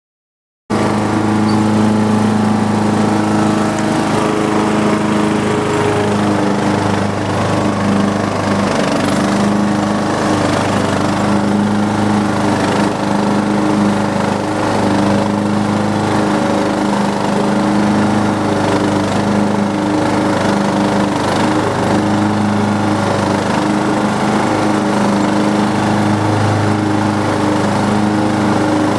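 Riding lawn mower's Briggs & Stratton engine running steadily at constant speed while mowing grass, cutting in abruptly under a second in.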